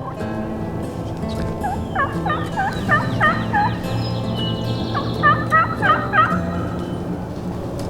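Wild turkey gobbling: two rattling runs of quick notes, about two seconds in and again about five seconds in.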